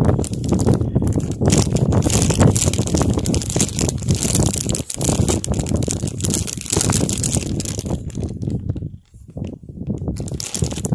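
Wind buffeting the microphone over a wood gas stove's fire burning hard, with crackling from the burning wood. The gusts let up suddenly for a moment about five seconds in and again around nine seconds in.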